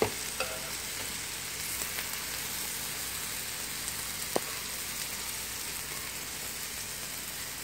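Sausage patties frying on a flat griddle: a steady sizzling hiss with a few small pops of spattering fat, the sharpest about four seconds in.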